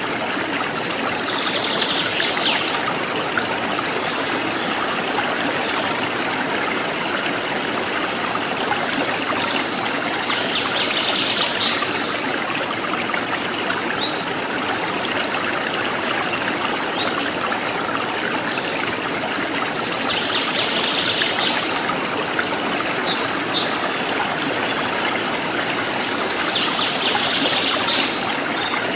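Forest stream trickling and splashing steadily, with a few short, high bird calls over it.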